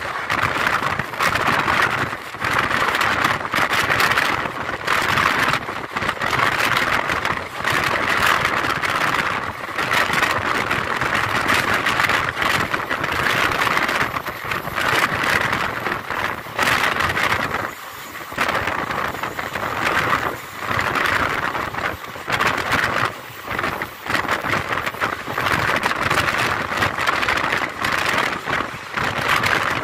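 Passenger train running at speed, heard from an open doorway of the coach: a steady rush of wheels on rails and wind, swelling and dipping every second or two.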